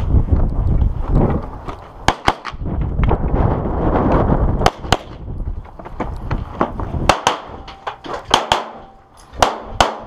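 A competitor's pistol firing a string of shots in quick pairs and short clusters, beginning about two seconds in and running nearly to the end. Low rumbling noise fills the first couple of seconds before the shooting starts.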